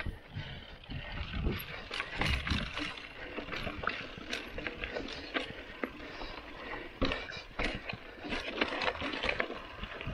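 Mountain bike rolling over a dirt and gravel trail: tyres crunching, with many sharp clicks and rattles from the bike, and gusts of wind rumbling on the microphone in the first few seconds.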